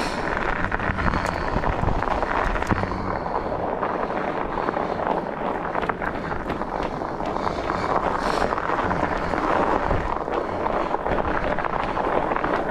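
Steady rushing noise of a fat bike being ridden along a packed snow trail: wind on the microphone mixed with the tyres rolling over snow, with a few brief sharp clicks from the bike.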